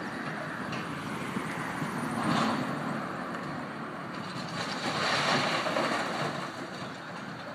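A car driving past on the street, swelling twice and fading, over a steady wash of wind on the microphone.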